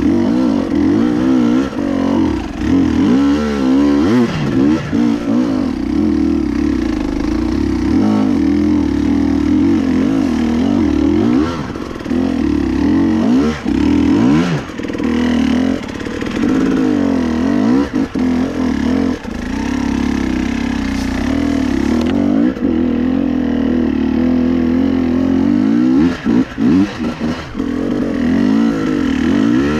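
KTM EXC 300 two-stroke dirt bike engine being ridden, its pitch rising and falling continuously with the throttle, with a few brief drops in loudness.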